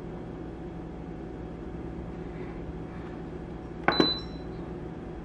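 Joyoung rice cooker's control knob clicking twice about four seconds in, followed by a short high beep from the cooker as a cooking mode is selected. A low steady hum runs underneath.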